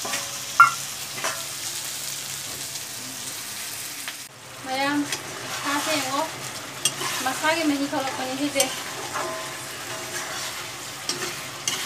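Chicken curry sizzling in an iron kadai, with a sharp clink about half a second in. From about four seconds in, a spatula scrapes and stirs through the pan in repeated strokes.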